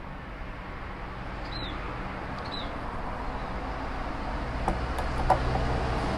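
Steady low background hum with three faint short falling chirps, and a few light clicks and knocks near the end as a smartphone is handled on a wooden table.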